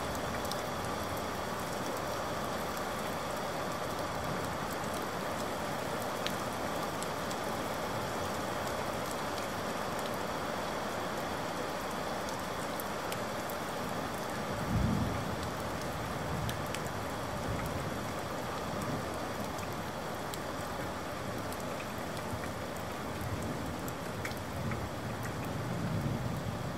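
Steady rain, with a low rumble of thunder about halfway through and more rumbling building near the end.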